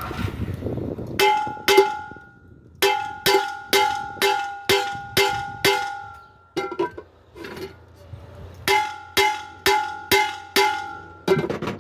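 Metal being struck with a hammer, about two blows a second in three runs with short pauses, each blow ringing with the same metallic tones, as in hammering on a pressure cooker's aluminium pot or lid during repair. A brief scraping comes just before the first blows.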